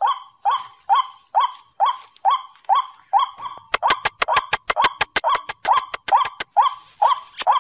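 White-breasted waterhen (ruak-ruak) calls played through a small lure loudspeaker. Short calls falling in pitch repeat about two a second. In the middle comes a fast run of sharp clicks, about six a second.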